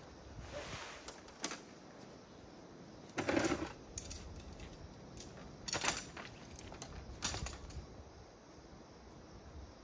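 Tent being pitched: short bursts of rustling and clinking as the poles and fabric are handled, about five of them, the loudest about three seconds in.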